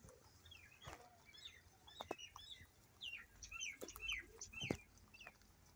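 Small birds chirping faintly in short, quick falling notes, busiest in the second half, mixed with a few sharp clicks and crunches from rabbits chewing dried apple peel.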